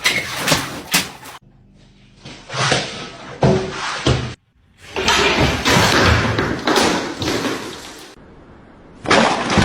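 A series of loud bangs and thumps.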